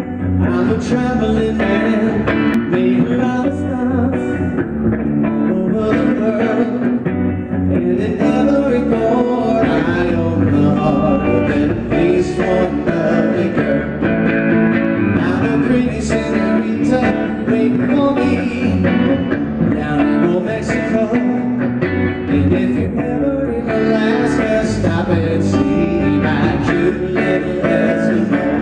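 Live rock-and-roll band music: electric guitar and electric bass playing, with a man singing the lead.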